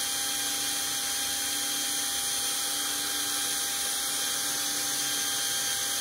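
Cordless drill running steadily at one constant speed, its diamond-tipped bit slowly grinding a hole through wet china under steady pressure. An even, unchanging whine.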